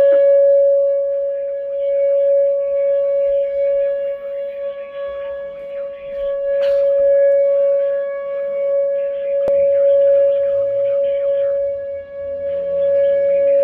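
Whelen WPS-2910 electronic outdoor warning siren sounding a steady alert tone for a tornado warning, holding one pitch and swelling and fading in loudness about every three seconds.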